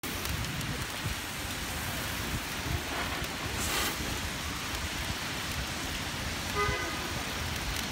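Small unicorn-shaped fountain fireworks spraying sparks with a steady hiss over a low rumble of wind and traffic, with a brighter burst of hissing just before four seconds in. A short horn toot sounds near the end.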